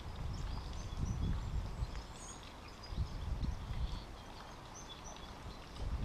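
Outdoor garden ambience: a low, gusty rumble of wind on the microphone, with many short, faint chirps of small birds in the background.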